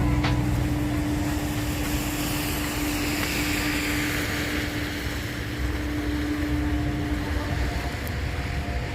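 Road traffic: a steady engine hum and rumble, with a passing vehicle's tyre hiss swelling and fading about two to four seconds in.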